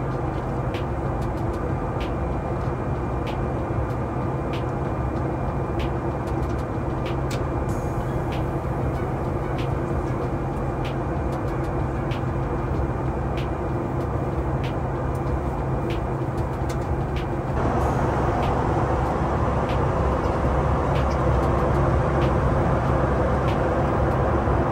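Boeing 737 MAX 8 cabin noise while taxiing: a steady engine and airflow drone with regular light knocks, about one and a half a second. The drone grows louder suddenly about two-thirds of the way through.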